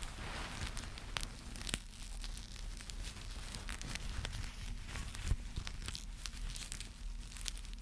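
Close-up crinkling and crackling of something being handled, with scattered sharp clicks, the sharpest about five seconds in.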